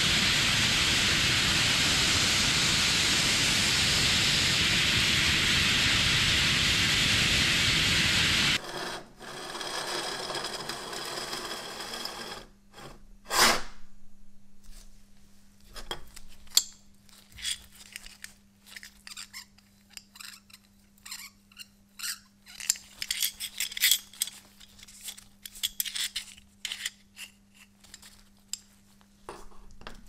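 Blast cabinet gun spraying abrasive onto a padlock, a loud steady hiss that cuts off abruptly about eight and a half seconds in. Then a much quieter run of small metallic clicks, taps and scrapes as the padlock is handled on a steel worktable, with one sharper click a few seconds after the hiss stops.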